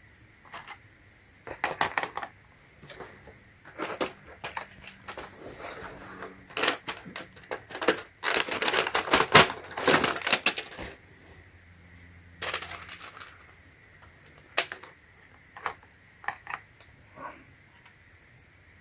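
Mechanical keyboard with AKKO Matcha Green switches being pressed, keycaps clacking. Scattered single presses, then several seconds of rapid presses in the middle, then a few more single ones.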